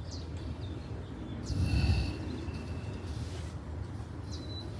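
A pause in speech: a man breathes into a handheld microphone about a second and a half in, over a low steady rumble and faint bird chirps.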